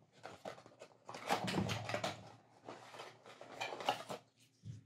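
Cardboard phone box and its inner tray being handled and slid apart: irregular scraping and rustling of cardboard, busiest about a second in and again near the end.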